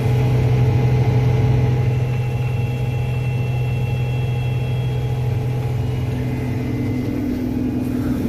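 Combine harvester running steadily while harvesting corn, a constant low engine hum with a few faint steady whines above it.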